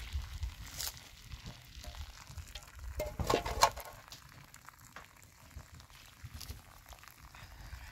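Boiled spaghetti and its hot water poured from a metal pot into a plastic basin, the water splashing and running out of the basin onto gravel. About three and a half seconds in comes the loudest moment, a clatter with a metallic clank as the pot is set down.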